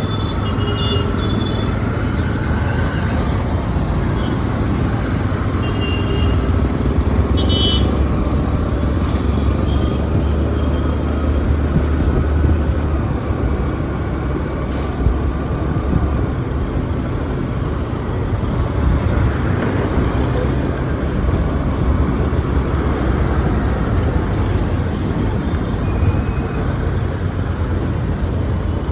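Road traffic: a steady rumble of engines and tyres, with a few brief high horn toots.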